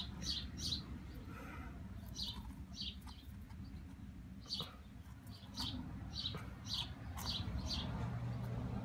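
Small birds chirping: short chirps repeated in loose groups, a few a second, over a low steady background hum.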